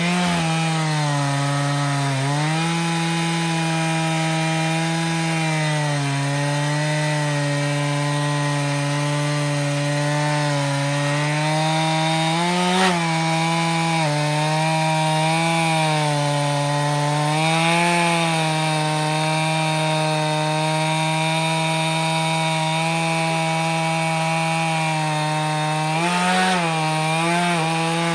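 Chainsaw on an Alaskan mill running under load as it rips lengthwise through a log. The engine holds a steady high note that dips briefly and recovers several times as the chain bites.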